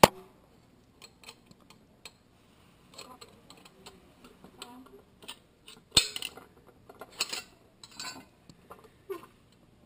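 Scattered light metallic clicks and clinks of a Yale Mono Lock's cover plate and mechanism being worked loose by hand, with a sharp click at the start and a louder one about six seconds in.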